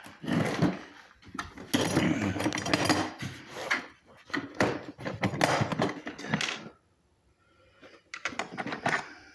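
Metal hand tools and small parts clattering and clicking as they are handled and rummaged through, with a quiet pause of about a second late on.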